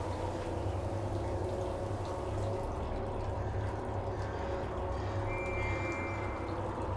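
A steady low rumble with a hissy background, and a faint high tone for about a second past the middle.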